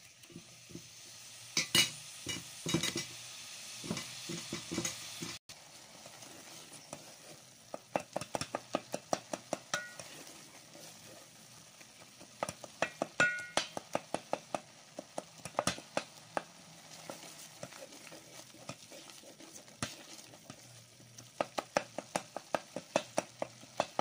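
Metal spoon stirring and mashing tomatoes and onions in an aluminium sufuria, clicking and scraping against the pot in quick runs. The tomatoes sizzle underneath as they cook down into a sauce base.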